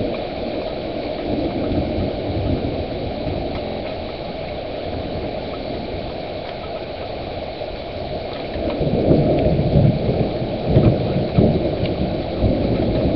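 Thunderstorm: rain falling steadily, with thunder rumbling low and growing louder from about nine seconds in.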